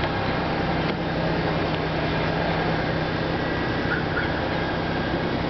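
2002 Chevy Impala's V6 idling steadily after a remote start: a constant low hum under a rushing noise.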